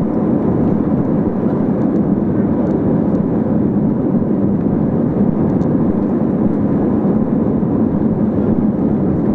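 Steady cabin noise of an Airbus A320-232 climbing out, heard inside the cabin from a window seat behind the wing. Its IAE V2500 turbofans and the rushing airflow make an even, deep rumble that does not change.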